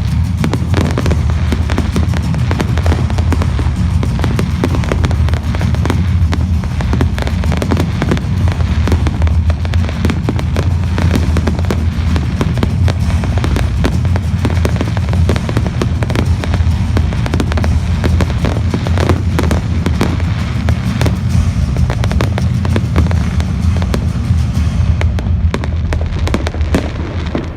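Fireworks display crackling and popping in a rapid, dense stream of small bangs over loud music, the crackle thinning out near the end.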